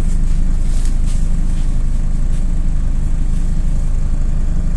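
MAZ-206 city bus under way, a steady low engine and road drone heard from inside the passenger cabin.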